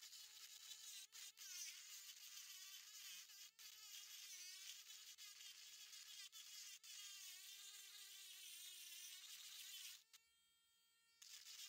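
Dremel rotary tool with a thin bit grinding into fossil shell rock: a high-pitched whine with a gritty rasp, its pitch wavering as the bit bites. About ten seconds in, the bit lifts off and the tool spins free, quieter and cleaner in tone, for about a second, then bites into the rock again near the end.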